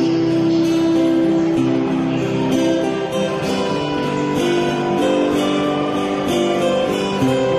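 Instrumental passage of a slow ballad: acoustic guitar strumming under long held melody notes.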